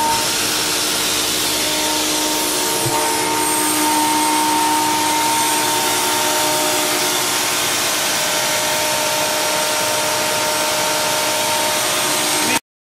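CompAir L37 oil-flooded rotary screw air compressor running steadily off load on its run-on timer, after reaching about 7.9 bar. It makes a loud, even rush of air over a constant hum.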